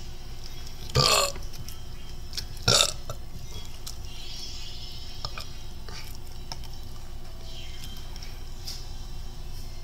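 Two loud, short burps, one about a second in and another near three seconds, followed by a few faint clicks.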